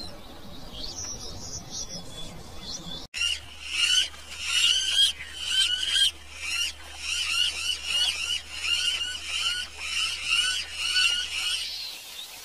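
Faint bird chirps, then from about three seconds in a yellow-throated toucan's loud yelping call, repeated about twice a second until near the end.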